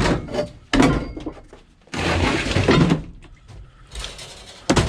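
Scrap metal being handled: a run of knocks and clatters, with longer scraping rattles about two seconds in and again near the end.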